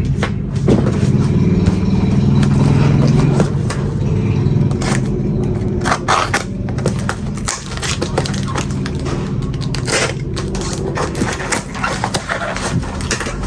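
Handling noise from unwrapping packaging: repeated scraping, rustling and clicking as the next lighter is taken out of its wrapping. A low steady hum runs underneath, strongest in the first few seconds and again later on.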